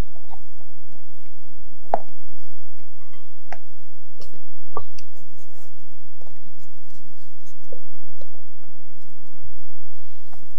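Wire whisk scraping and tapping against a glass mixing bowl while chocolate batter is stirred and meringue folded in, with a few separate sharp clicks where the wires knock the glass.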